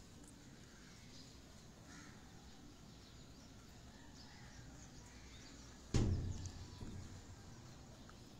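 Faint rooftop background with a few soft bird calls, broken by a single thump about six seconds in that dies away over about a second.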